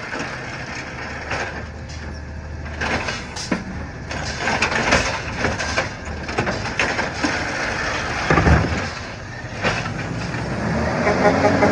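Recycling truck running, with a series of knocks and clatters. Its engine revs up near the end.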